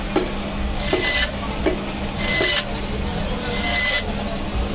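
Electric fish-cutting band saw running with a steady hum while its blade cuts through steaks of a large shillong fish, backbone included. Three rasping cuts come about a second and a half apart.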